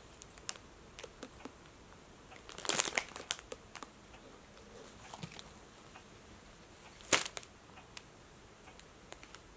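Plastic bun wrappers crinkling as they shift and slide on the cats' heads: a cluster of crackles about three seconds in and one sharp crackle about seven seconds in, with faint ticks between.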